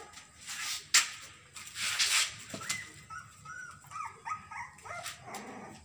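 Puppy whimpering in a run of short, high squeaks that rise and fall, starting about two and a half seconds in, after a few noisy rustles and one sharp click near the start.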